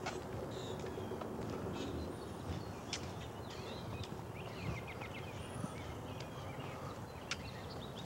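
Wild birds chirping and calling, with short high whistled notes scattered through and a burst of chirps near the middle, over a low steady rumble and a few sharp clicks.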